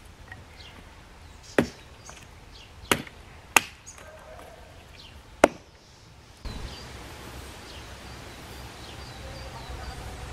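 Small hatchet chopping a dead branch: four sharp strikes over a few seconds, the second and third close together. After that, faint bird chirps over a low steady outdoor background.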